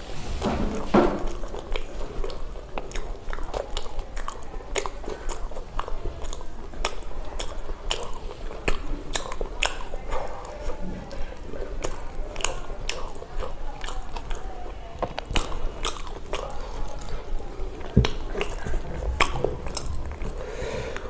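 Close-miked mouth eating pav bhaji (soft bread rolls with mashed vegetable curry): steady chewing and biting with many sharp wet clicks and smacks, several a second, one louder smack near the end.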